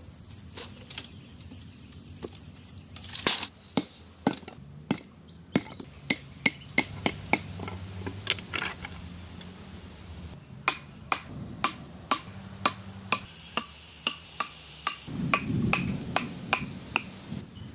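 Sharp wooden knocks in quick series as a blade chops points onto wooden stakes against a log, then a wooden club pounds the stakes into the ground at about two strikes a second. A steady high insect whine comes and goes behind them, and a brief low rumble sounds near the end.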